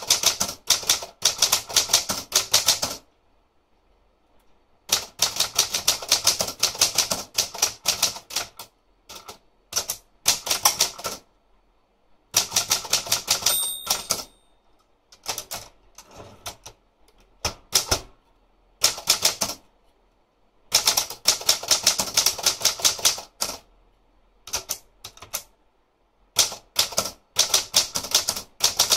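Olympia Traveller De Luxe manual portable typewriter being typed on: fast runs of key strikes in bursts of a few seconds, separated by short pauses, with one brief ring about halfway through.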